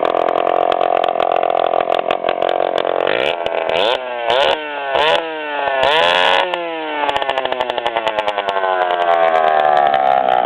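1997 Suzuki DS80's small two-stroke single-cylinder engine running with its exhaust pipe broken off the cylinder head, so it sounds straight from the exhaust port with a major exhaust leak. It holds a steady speed for about three seconds, then the throttle is blipped four times in quick succession. After that the revs fall away slowly and begin to climb again near the end.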